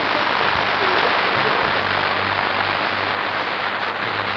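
A steady, even rushing noise, like heavy rain, at an unchanging level.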